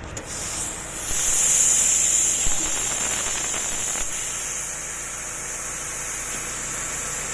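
CNC plasma cutter torch cutting sheet metal: a steady high hiss that comes in about a second in, is loudest for the next few seconds, then settles a little lower.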